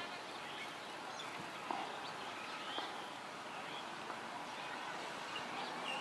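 Outdoor woodland ambience: a steady hiss with scattered short, high bird chirps, and a sharp tap a little under two seconds in.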